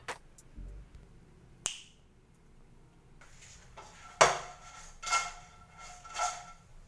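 Metal frying pan clanking and ringing several times as it is handled at the stove. A sharp click with a short ring comes earlier, about a second and a half in.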